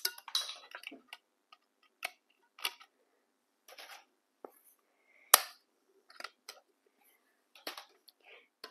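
Dry oven-ready lasagna sheets being snapped into pieces and laid into a metal springform pan: a string of short, sharp cracks and clicks, the loudest a single snap about five seconds in.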